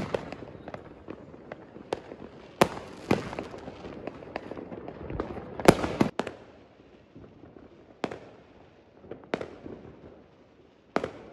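Fireworks going off: a string of sharp bangs with crackling between them, the loudest bang about halfway through, then fewer, more spaced-out bangs.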